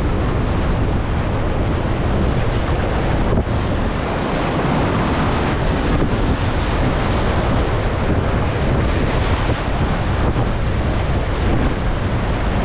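Whitewater rapids at high water rushing and breaking around a kayak, heard up close, with wind buffeting the microphone.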